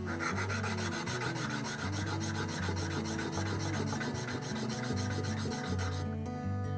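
Metal plumbing connector rubbed in quick back-and-forth strokes on a wet diamond sharpening plate, a steady rasping scrape that stops about six seconds in. The connector's face is being lapped flat so that it seals on a compression isolating valve without leaking.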